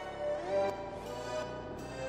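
Slowed-down, reverb-heavy hyperpop music: layered, sustained pitched notes, some bending in pitch, with no break.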